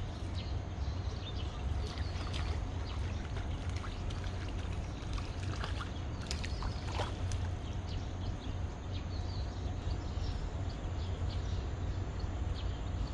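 Steady low rumble of traffic on the elevated road overhead, with scattered faint high chirps and ticks.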